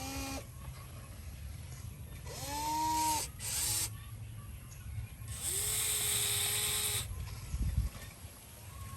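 A small electric motor whining in short runs, about four times, each run rising in pitch as it spins up and then holding steady, over a low steady rumble.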